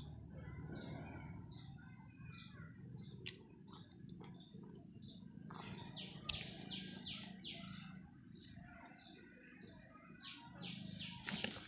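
Small birds chirping faintly, with a quick run of high, falling chirps about halfway through and another near the end, over a low background rumble.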